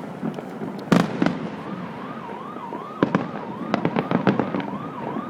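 Fireworks going off: a sharp bang about a second in and a cluster of bangs around three to four and a half seconds. From about a second and a half in, an emergency vehicle's siren wails in quick rising-and-falling sweeps, a little more than two a second.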